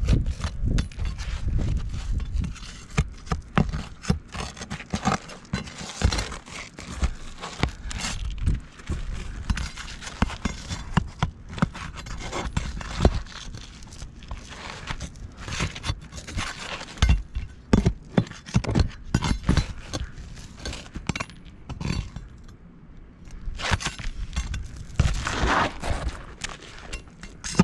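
Nails being pried out from under asphalt roof shingles with a hand tool: irregular scraping, knocks and taps as the tool works under the shingle tabs.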